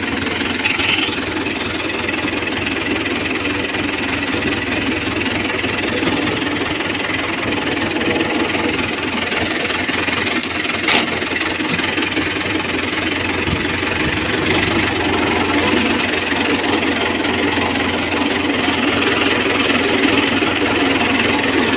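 Farm tractor's diesel engine running steadily as the tractor drives along, with one brief knock about eleven seconds in.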